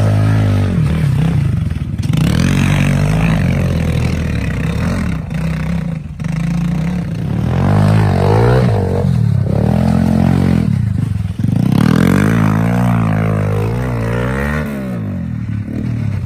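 Pit bike engines revving up and down in repeated surges, the pitch rising and falling every second or two as the bikes labour up a steep dirt hill climb.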